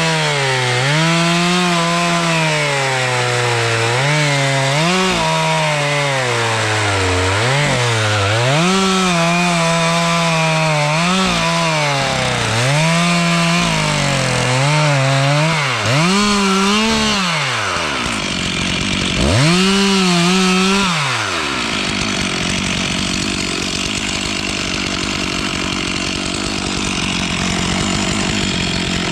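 Two-stroke chainsaw cutting dead spruce at full throttle, its engine speed sagging and recovering again and again as the chain bites into the wood. About 21 seconds in the revs drop away and the saw idles.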